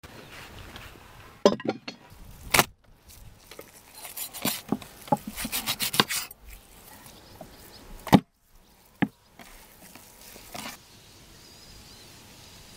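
Sharp knocks of utensils set down on a wooden table and cutting board, with a run of quick taps and scrapes from a knife cutting raw meat on the board a few seconds in.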